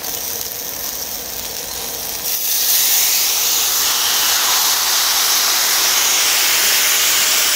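Pork belly and tomahawk pork chops sizzling on a large oiled cauldron-lid (sotttukkeong) griddle. The sizzle swells to a loud, steady hiss about two and a half seconds in, as wet aged kimchi is laid on the hot lid and steam rises.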